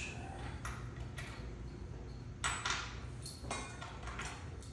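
A few light metallic clinks and clicks as steel brackets and bolts are picked up and handled, the loudest about halfway through, over a steady low hum.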